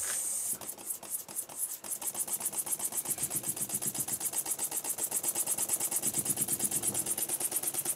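Scratch-built single-acting horizontal mill-type model steam engine with a spool valve, running on compressed air. It gives a few irregular puffs as it gets going, then settles after about two seconds into a fast, even rhythm of exhaust puffs, about ten a second, with a steady hiss of air.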